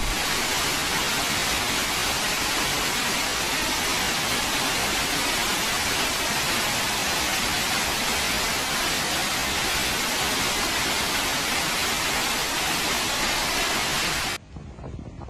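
Floodwater pouring down the stairs into a flooded underground metro station: a steady, even rush of water that cuts off suddenly near the end.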